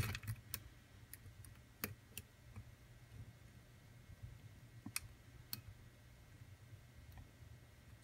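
Faint, sparse clicks of a lock pick working the pins of a pin-tumbler challenge lock: several in the first two seconds, then two about five seconds in.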